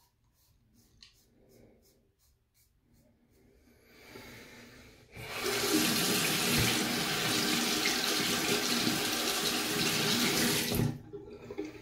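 Bathroom tap running into the sink for about five seconds, starting about five seconds in and shutting off sharply, as a safety razor is rinsed of clogged shaving cream mid-shave. Before it, a few faint clicks.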